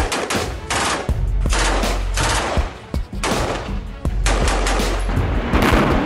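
Rapid bursts of rifle fire: strings of sharp, echoing shots several times a second, in repeated bursts, over a low music bed.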